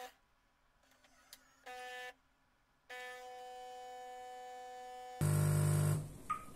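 Philips 5400 automatic espresso machine's pump buzzing steadily in two runs, a short one and then a longer one, while coffee pours into the cup. The footage is sped up, so the buzz sounds higher than normal. A louder, rougher mechanical noise lasts under a second near the end.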